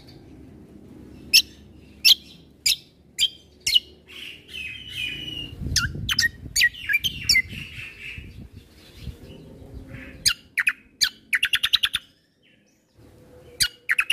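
Kecial kombo (cucak kombo) songbird singing: a run of sharp, high, down-slurred whistled notes about half a second apart, a stretch of warbling chatter, then a rapid trill of about a dozen notes a second near the end.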